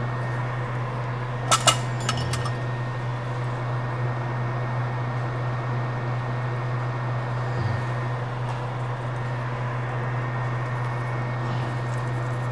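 Steady low hum from the microsoldering bench equipment. Two sharp clicks come about a second and a half in, followed by a few fainter ticks.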